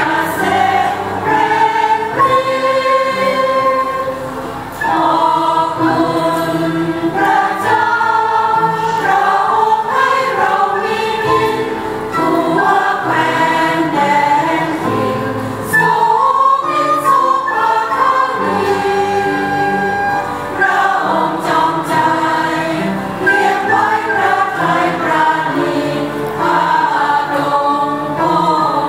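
A church congregation singing a hymn together in many voices, accompanied by an end-blown flute.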